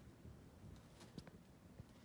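Near silence, broken by a few faint scratches and ticks of a cat moving and digging in cat litter inside a top-entry litter box.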